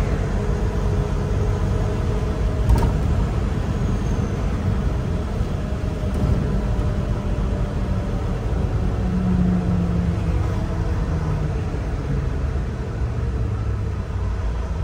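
Semi-truck diesel engine and road noise heard from inside the cab while driving, a steady low rumble. A brief click about three seconds in.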